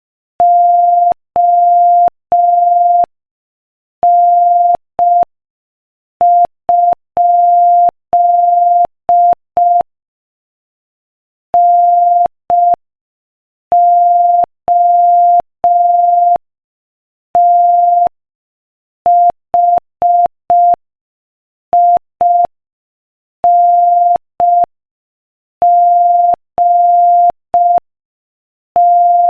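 Morse code sent as a single steady tone of about 700 Hz, keyed on and off into short dots and longer dashes at 5 words per minute, with a faint click at each key-down and key-up. A longer pause comes about ten seconds in, between words.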